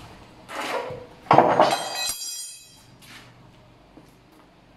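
Hand-operated bar cutter shearing a metal bar: a short scrape, then a loud metallic clank about a second and a half in, followed by about a second of ringing metal.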